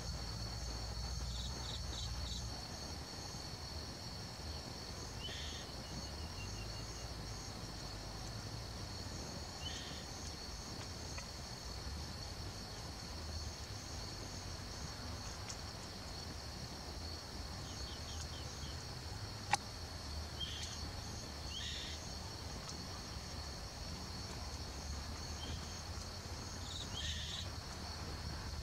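Steady high-pitched drone of insects, in two continuous bands, with short high chirps now and then and a low rumble underneath. A single sharp click about two-thirds of the way through.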